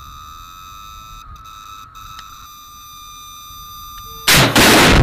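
FIM-92 Stinger seeker's steady high acquisition tone, the sign that the missile has locked onto the target, then a sudden loud blast a little over four seconds in as the missile is fired and the tone cuts off.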